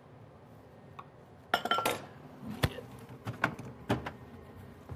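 Kitchenware being handled: a quiet start, then a burst of clattering and clinking about one and a half seconds in with a brief ringing clink, followed by a few separate knocks and clinks.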